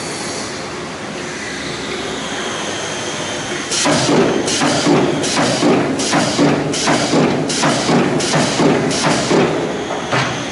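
Multi-head gantry spot welding machine at work: the welding heads clamp down in turn, a run of about nine sharp thuds with a hiss, roughly one every three-quarters of a second, starting about four seconds in over a steady machine hum.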